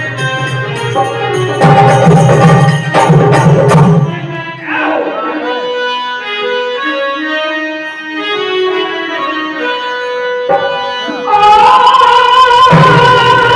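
Instrumental interlude of a Hindi bhajan: a harmonium melody over hand-drum strokes. The drums drop out for several seconds in the middle, and a long held note comes in near the end as the drums return.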